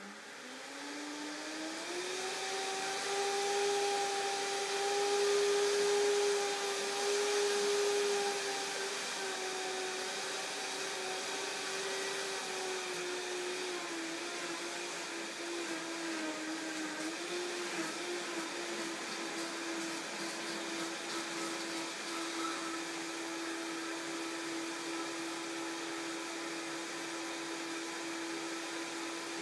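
Vitamix blender motor spinning up, its whine rising in pitch over the first two seconds, then running steadily as it purées a celery and tahini dressing. The pitch drops slightly about halfway through and holds there.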